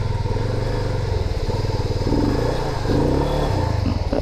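Yamaha FZ25's single-cylinder engine labouring under load on slippery mud, revving up in surges about two and three seconds in as the bike bogs down and gets stuck.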